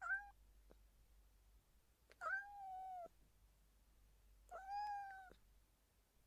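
A cat meowing three times: a short meow at the start, then two longer meows a little over two seconds apart, each lasting under a second.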